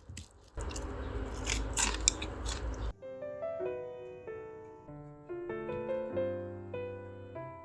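About two seconds of crackling, crunching noise with sharp clicks, cut off abruptly about three seconds in. Light piano background music then plays to the end.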